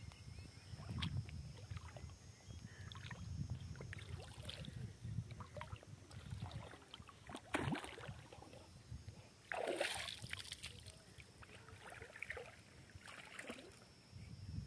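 Water splashing on the surface of a lake, with two louder splashes about seven and a half and ten seconds in, over a steady low rumble.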